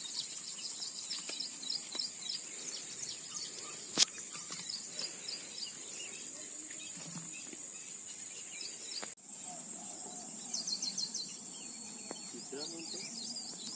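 Insects droning steadily at a high pitch, with small birds chirping over them in short repeated calls. There is a single sharp click about four seconds in.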